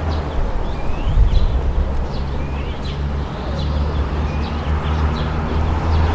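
Town ambience: a steady low rumble of traffic, with small birds chirping over it in short rising chirps about once a second.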